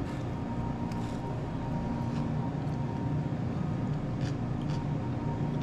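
Steady low mechanical hum with a constant whine, like an idling engine or motor, with a few faint light clicks over it.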